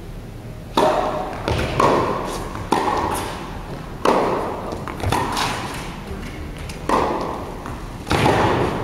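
Tennis rally: the ball is struck by rackets and bounces on the court, about eight sharp hits echoing in an indoor arena. A swell of crowd noise rises near the end.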